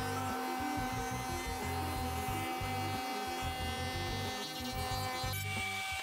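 Table-mounted wood router running with a steady whine as a pine panel is fed past the bit. Background music plays under it.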